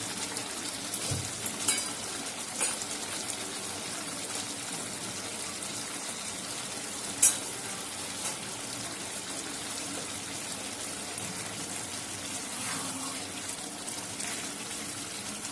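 Potato curry simmering in a pan on the stove: a steady low sizzling hiss, with a few light taps in the first seconds and one sharp click about seven seconds in.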